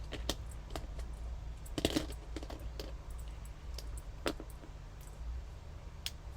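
Small connector letter stamps clicking and tapping against each other as they are sorted through by hand. The clicks come irregularly, about ten of them, the sharpest about two seconds in and again after four seconds.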